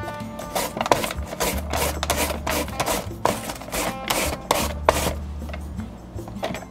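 A carrot rasped back and forth across the julienne blade of a hand mandoline slicer, cutting it into thin strips: a quick run of scraping strokes, about two or three a second, that stops about five seconds in.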